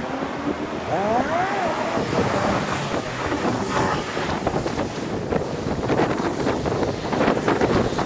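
Wind buffeting the microphone on a moving electric scooter, over a steady rush of street and traffic noise. A short wavering tone rises and falls about a second in, and the buffeting grows denser near the end.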